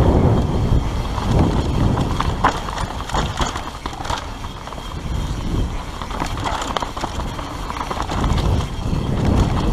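Mountain bike descending a dirt singletrack at speed: wind buffets the camera microphone over tyre noise on dirt. Irregular knocks and rattles come from the bike as it hits bumps and roots.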